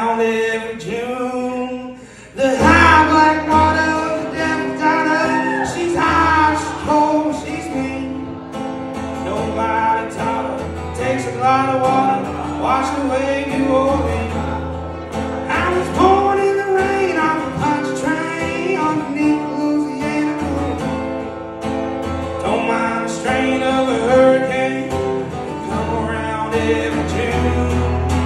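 Live country-style song: a man singing over a strummed acoustic guitar, the band getting louder and fuller about two and a half seconds in.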